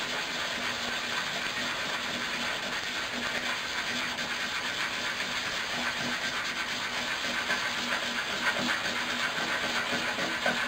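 Emery cloth rubbed back and forth over a piece of aluminium drinks-can metal: a steady hiss of quick abrasive strokes. The cloth is dulling the can's shiny surface and thinning the metal for a pinhole lens.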